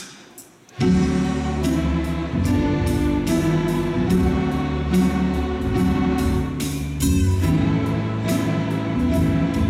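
A large school string orchestra of violins, cellos and basses starts a lively tune about a second in, after two sharp clicks, and plays on with a steady beat.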